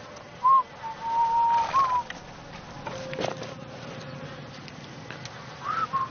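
A slow whistled tune, a few held notes with short upward slides, with one short clink a little over three seconds in.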